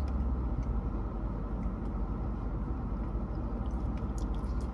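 Steady low rumble of a car's cabin with the engine running, with a few faint clicks over it.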